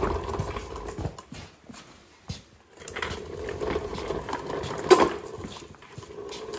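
Wooden caster dolly loaded with a car battery and power inverter being handled and shifted on a concrete floor: rumbling and clatter, with a sharp knock about five seconds in.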